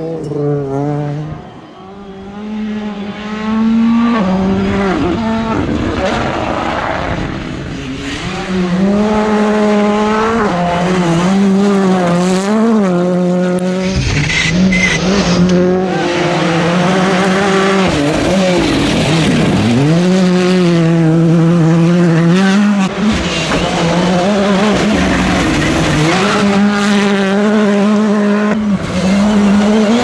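Turbocharged rally cars driven hard on a gravel stage, one after another: each engine revs up and drops again and again through quick gear changes and lifts off the throttle, with tyres scrabbling on the loose surface.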